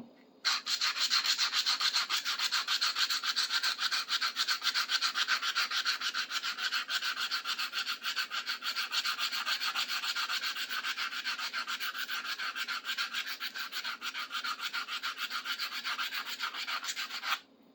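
Rusty screwdriver being scrubbed by hand with an abrasive, in fast, even back-and-forth strokes of about five a second. The strokes start about half a second in and stop just before the end.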